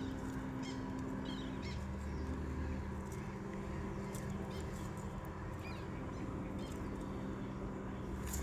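A few short bird chirps over a steady low hum.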